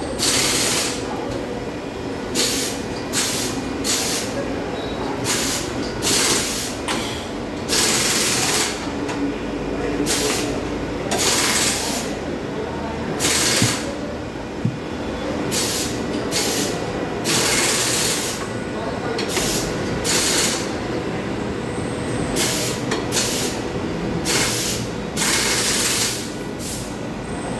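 Compressed air hissing in many short, irregular bursts: a pneumatic tyre-changing machine and air line in use during a motorcycle tyre change.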